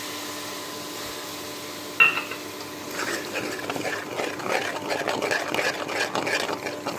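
A steel spoon clanks once against a steel kadhai about two seconds in, then stirs and scrapes wet tomato and green chilli paste into sizzling masala with rapid, uneven strokes.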